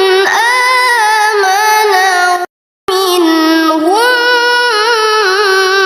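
A qari reciting the Qur'an in the slow, melodic tilawah style, holding long notes with wavering ornaments on the words "amana" and "wa-minhum". The voice cuts out completely for a moment about halfway through, then resumes.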